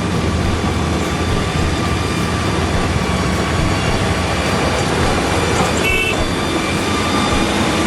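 Heavy earthmoving machine's diesel engine running steadily, with a short high-pitched squeal about six seconds in.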